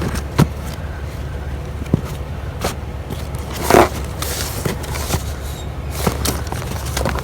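Discarded books and other items being handled and shifted in a curbside pile: scattered short knocks and rustles, the loudest about halfway through, over a steady low rumble.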